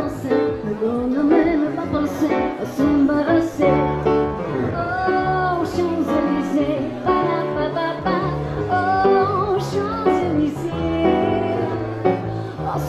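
Live music: a woman singing into a microphone, holding long notes with vibrato, accompanied by a digital keyboard playing chords over low bass notes.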